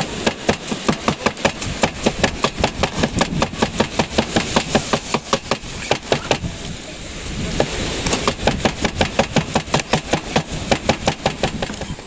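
A steel cleaver chopping garlic cloves on a wooden cutting board: rapid, even knocks about four to five a second. They stop for about a second a little past halfway, then start again.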